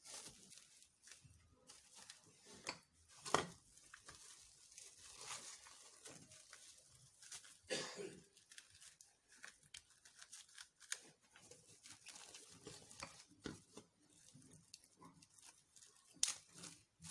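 Plastic cling film being pulled, torn and crinkled as it is wrapped over cups. It makes irregular crackles, with louder tearing sounds about three seconds in and again near eight seconds.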